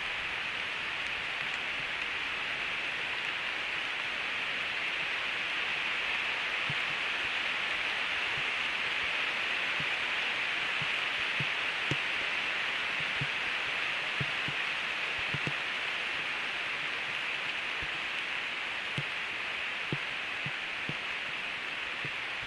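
Heavy rain falling steadily, a constant hiss, with scattered single drops tapping close by from about six seconds in.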